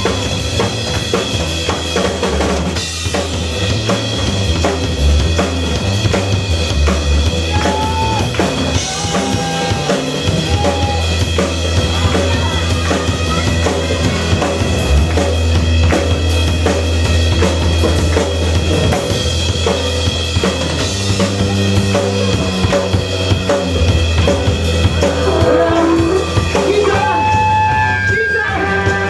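Live rock band playing: a drum kit keeps a steady beat under bass guitar and electric guitars.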